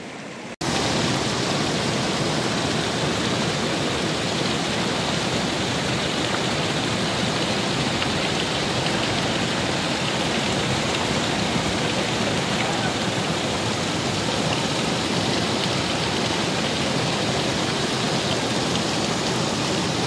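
Rushing water of a small waterfall and its stream pouring over and around rocks: a steady, dense rush that comes in abruptly about half a second in.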